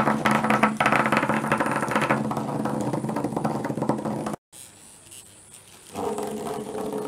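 HEXBUG nano robot bugs buzzing, their vibration motors rattling their little rubber legs against a plastic track and floor. The buzz cuts off about four seconds in and picks up again, quieter, near the end.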